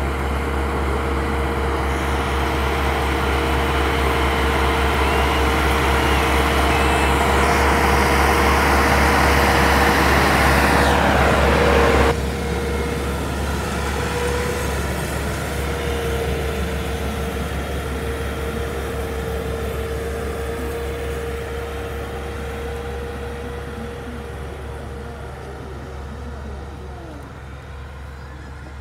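Tractor diesel engine running hard as it pulls a heavily loaded trolley, a steady rumble with a held whine, growing slowly louder for about twelve seconds. It then drops suddenly, and another tractor engine under load carries on, slowly fading away.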